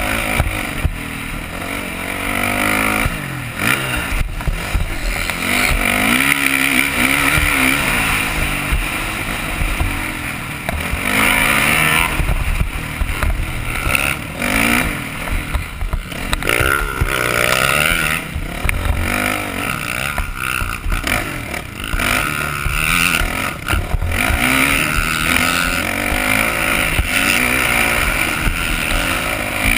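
Motocross bike engine, heard from the rider's position on the track: the revs climb and drop again and again as the rider throttles on and off through the ruts and corners. There are scattered knocks and rattles from the bike over bumps.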